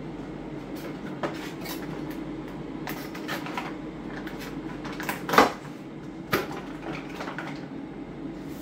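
Plastic packet handled and torn open at a kitchen sink, with rustling and a few sharp knocks and clatters, the loudest about five seconds in, over a steady low hum.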